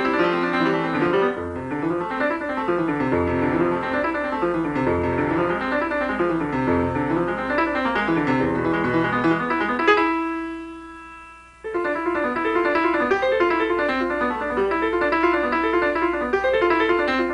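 Piano music: quick running notes over a moving bass line. About ten seconds in, a single chord is struck and left to ring out, fading for under two seconds before the quick playing starts again.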